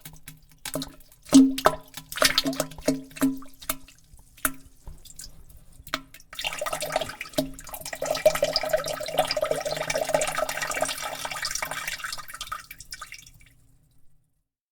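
Pooping sound effect: about a dozen short wet plops and drips into toilet water in the first six seconds, then a steady stream of liquid splashing into the water for about seven seconds, fading out near the end.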